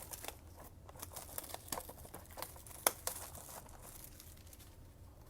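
Plastic shrink-wrap crinkling and tearing as a sealed trading-card blaster box is unwrapped and opened, with irregular crackles and one sharp snap about three seconds in.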